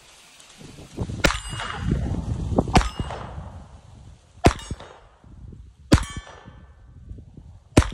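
Five shots from a Baby Browning .25 ACP (6.35 mm) pocket pistol, about one and a half seconds apart, each with the ringing ping of a steel target being hit.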